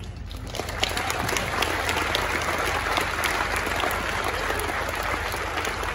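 Audience applauding, the clapping building up within the first second and then holding steady.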